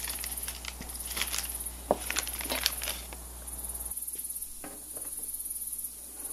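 Clear plastic piping bag crinkling and rustling as it is handled, in many short crackles. Later, a few light clunks as a metal cupcake tin is set down on a wire cooling rack.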